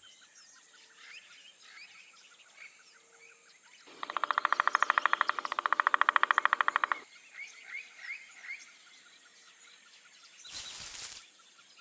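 Cartoon forest ambience with birds chirping softly. About four seconds in comes a loud, rapid rattle of roughly fifteen beats a second, lasting some three seconds in two runs. Near the end there is a short rustling hiss.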